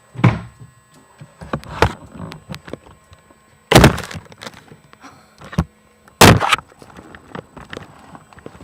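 A run of loud knocks and thumps, with two sharp bangs standing out about four and six seconds in.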